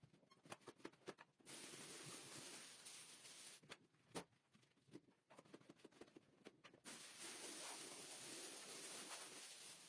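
Carpet cleaning machine hissing in two steady bursts of about two to three seconds each, with scattered clicks and taps between them.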